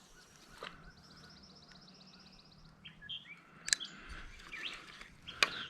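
Wild birds calling: a fast, even trill of a dozen or so high notes, then scattered chirps. Two sharp clicks, one about midway and one near the end, are the loudest sounds.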